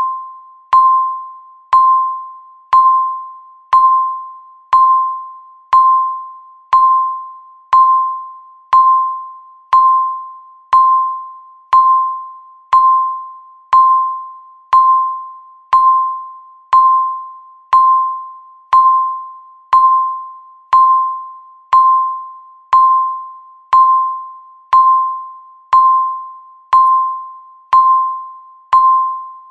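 Countdown timer beeping once a second: each beep is a single mid-pitched tone that starts sharply and fades away before the next, chime-like, about thirty in a row.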